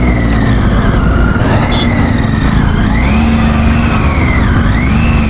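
Triumph Tiger 800's three-cylinder engine on a loose gravel climb, its revs rising and falling about three times as the rider works the clutch and throttle to keep it from stalling.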